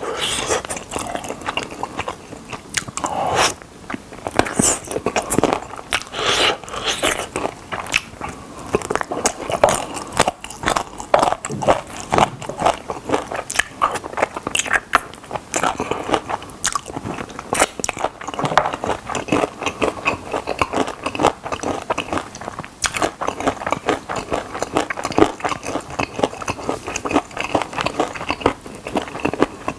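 Close-miked eating of fried chicken drumsticks: crispy batter crunching and crackling with each bite, along with wet chewing, in an irregular run of bites.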